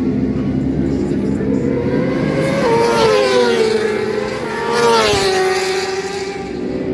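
Race car engine accelerating, its pitch climbing and dropping back at gear changes about three and about five seconds in.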